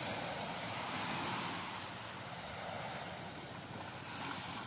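Small waves washing onto a sandy beach, with wind blowing across the microphone: a steady hiss that swells and eases gently.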